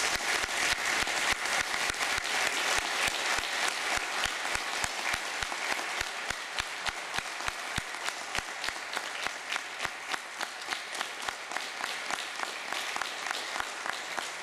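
Audience applauding. The dense clapping thins out over the second half and settles into steady rhythmic clapping, about three or four claps a second.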